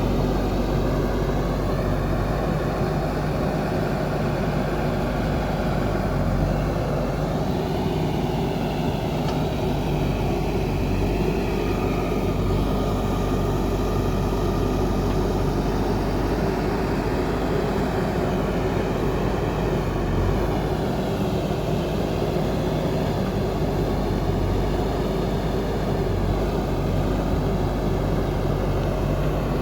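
Diesel engine of a JCB backhoe loader running continuously while it digs and loads mud, its pitch rising and falling several times as the engine is revved under hydraulic load.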